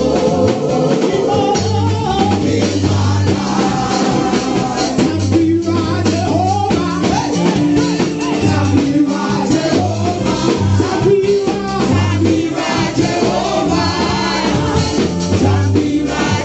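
Gospel praise music: a singer's voice over a band accompaniment with a repeating bass line.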